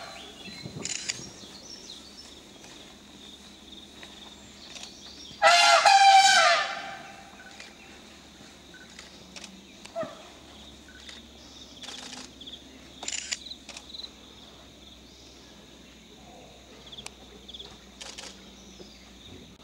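Wild Asian elephant trumpeting once, a loud, high blast of about a second and a half some five and a half seconds in, from a herd that has turned restive and a bit angry. Between calls there are only scattered small rustles and snaps.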